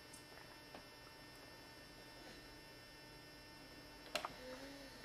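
Near silence: faint room tone with a steady hum. About four seconds in comes one sharp click, followed by a short voiced sound.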